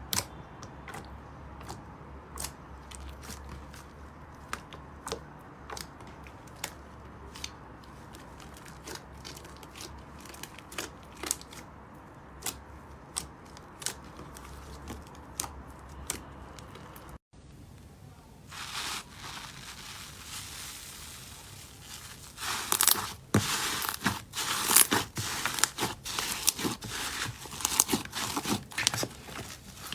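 Slime being squeezed and poked by hand: scattered small clicks and pops at first, then, after a cut, dense loud crackling and crunching in the last third, typical of crunchy slime.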